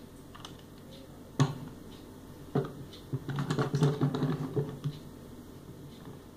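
Small Meknex metal construction-kit toy car with plastic wheels put down on a wooden tabletop with two sharp knocks, then pushed about by hand, wheels and metal plates clattering for about two seconds.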